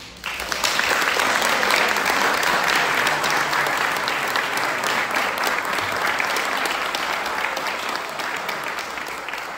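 Audience applauding, starting abruptly just after the music stops and slowly fading toward the end.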